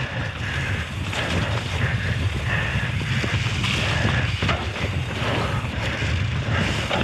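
Wind buffeting a mountain biker's action-camera microphone, mixed with knobbly tyres rolling over a rough, wet trail and the bike rattling over bumps.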